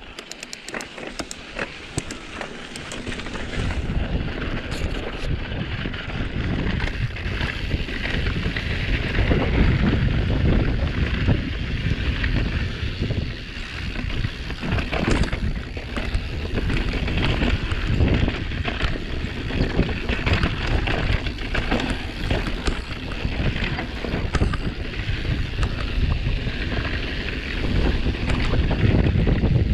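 Wind buffeting an action camera's microphone and knobby tyres rolling over dirt and rocks as a mountain bike rides down rough singletrack, with frequent knocks and clatter from the bike over bumps. It gets louder over the first few seconds as the bike picks up speed.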